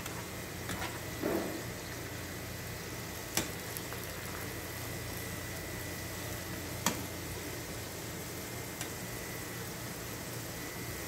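Cubed potatoes sizzling steadily in oil in a nonstick frying pan, nearly cooked. A spatula knocks sharply against the pan twice, about a third and two thirds of the way through, with a fainter knock later.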